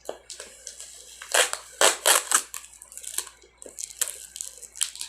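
Parcel packaging crinkling and tearing in irregular bursts as it is forced open, loudest about a second and a half in; the package is tightly sealed and hard to open.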